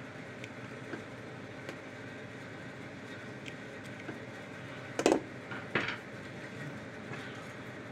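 Hands handling insulated electrical wires and a pair of crimpers over a steel case, with a few faint clicks and two brief, louder rustling clicks about five and six seconds in, over a steady background hum.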